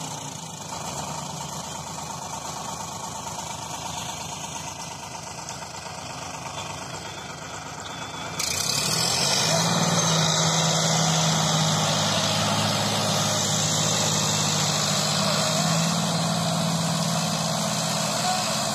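Sonalika tractor's diesel engine running steadily, getting clearly louder about eight seconds in.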